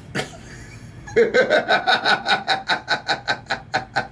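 People laughing hard, a fast run of ha-ha pulses about five a second, starting about a second in after a quiet breathy start.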